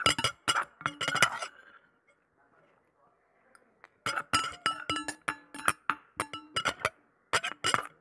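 Metal spoon clinking and scraping against a stainless steel bowl in quick strokes, the bowl ringing briefly after each hit. A run of clinks at the start, a pause of about two seconds, then another run.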